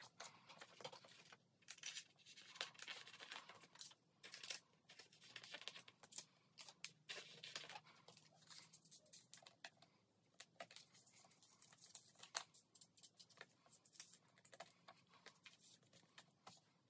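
Faint crinkling and tapping of clear plastic binder sleeves as photocards are handled and slid into the pockets, in short irregular bursts.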